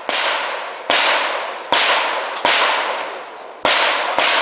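A string of six gunshots at a steady pace, under a second apart, each trailing off in a long echo; the last two come closer together.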